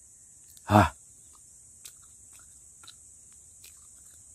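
A man's short vocal exclamation with falling pitch about a second in, a reaction to the bitter taste of the chewed leaves. Under it runs a steady high insect drone, with a few faint clicks.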